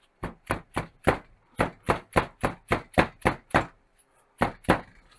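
Plastic hammer tapping a new grease seal into the back of a VW Beetle front brake drum hub: about fourteen sharp, even taps at roughly three a second, with a short pause near the end.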